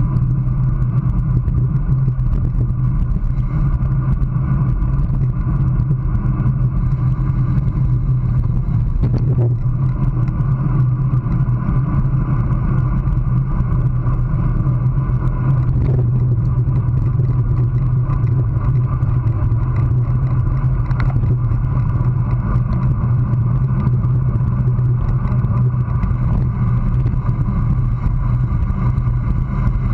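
Steady wind and road noise on a handlebar-mounted GoPro on a road bike riding at about 22 to 30 mph: a constant low rumble with a faint hum above it.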